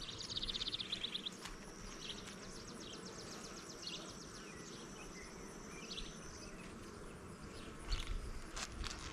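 Honeybees buzzing steadily around an open hive, with high trilling calls over the top and a couple of light knocks near the end.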